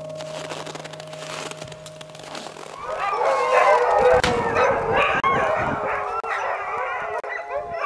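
The last held note of the piano music dies away, then about three seconds in a chorus of many dogs starts howling together, with overlapping wavering howls and yips.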